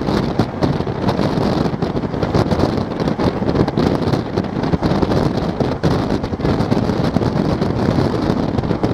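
Steady running noise of a moving passenger train heard from on board, with wheels on rails and rushing wind buffeting the microphone.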